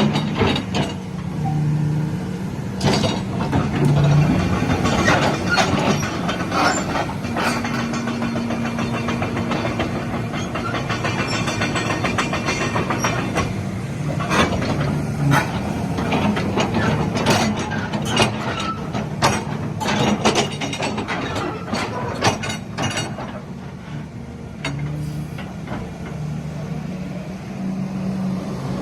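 Volvo EC210BLC crawler excavator's diesel engine running steadily, with many sharp metallic knocks and clanks on top of it, most of them in the first three quarters.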